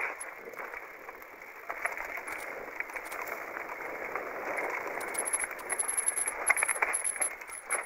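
Mountain bike rolling down a rough, rutted dirt trail: tyres crunching over loose stones and the bike rattling and clattering, with a denser run of knocks around five to seven seconds in.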